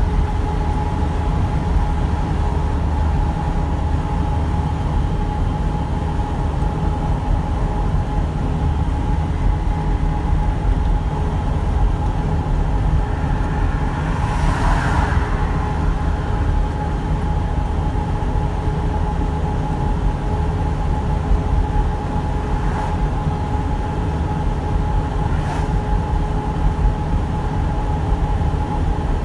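Inside a moving truck's cab: steady low engine and road drone at highway speed, with two faint steady whining tones over it. A brief rushing swell about halfway through, and two faint ticks later on.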